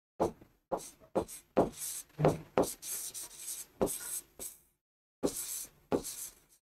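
Pen writing on an interactive display board's screen: a run of about a dozen short taps and scratches as words are written, with a brief pause about three-quarters of the way through.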